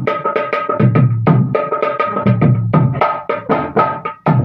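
Dholak, a two-headed barrel drum, played fast by hand: deep thumps from the bass head mixed with ringing slaps on the treble head in a quick, driving rhythm. It breaks off for a moment near the end, then starts again.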